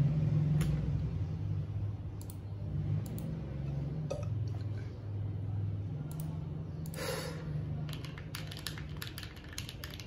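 Typing on a mechanical keyboard fitted with CMK Peach Blossom keycaps: a few scattered clicks, a short rustle around seven seconds in, then fast continuous keystrokes from about eight seconds in, as the new keycap set is tried out in a typing test.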